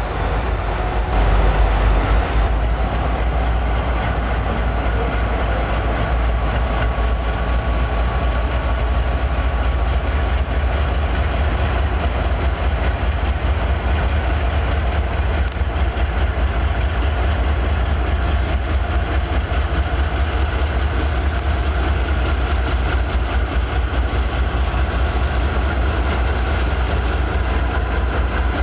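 A CSX GE C40-8W and an EMD SD40-2 diesel locomotive crawl past at low speed, leading a freight train. Their diesel engines run with a steady, heavy low rumble over the sound of the wheels on the rails.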